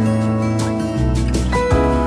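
Background music: a soft instrumental track with sustained notes, the bass note changing about a second in and again near the end.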